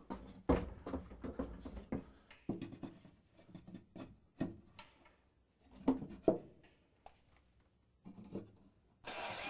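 Scattered knocks and scrapes of a pine backrest frame being handled and pushed into place against the wooden sauna wall and floor. Near the end a cordless drill starts up with a steady whine, driving a screw into the frame.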